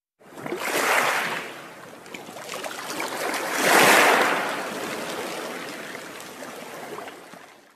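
Underwater whoosh sound effect for a logo intro: a rush of water and bubbles that swells about a second in, swells louder about four seconds in, then slowly fades.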